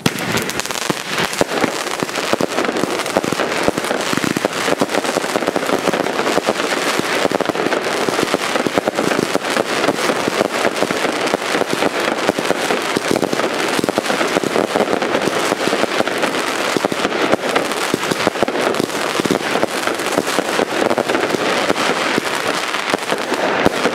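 Consumer firework battery (cake) firing nonstop: starting suddenly, a dense, rapid, continuous crackle of shots and bursting crackling stars, with no let-up.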